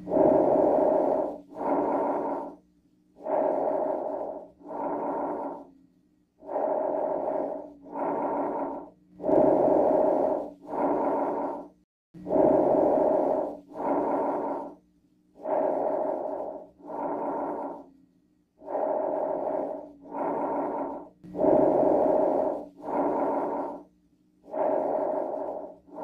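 Breath sounds heard through a stethoscope: a person breathing in and out, each breath a pair of sounds with a short break between, about one breath every three seconds.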